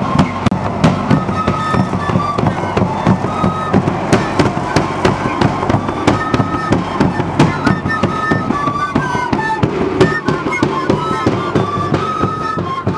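Andean pinkillo flutes playing a stepping melody over steady, sharp beats of the wankara (caja) drum.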